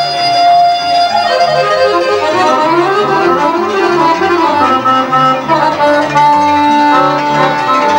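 Gypsy jazz in the Romanian lăutari style on accordion, cimbalom and double bass: a melody of held notes and quick runs over a steady, pulsing bass line.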